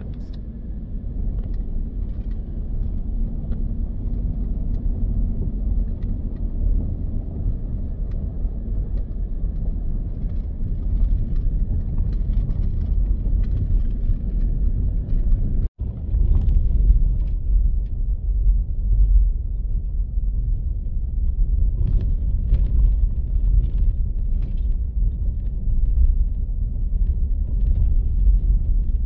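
Pickup truck driving slowly on a rough dirt road: a steady low rumble of engine and tyres, with small knocks and rattles over the bumps. The sound drops out for an instant just past halfway, then the rumble goes on a little louder.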